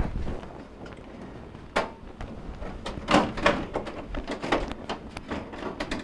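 Plastic back panel of a Maytag freezer section being pushed and worked into place over the evaporator: a series of knocks, clicks and rubbing of plastic on plastic, busiest about three to five seconds in.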